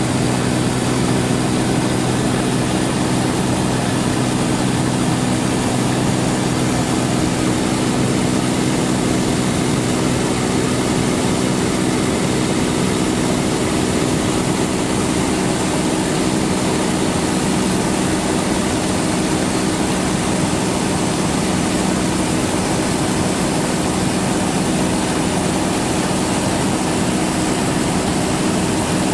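Loud, steady engine drone at constant speed, a low multi-toned hum over even noise, without change.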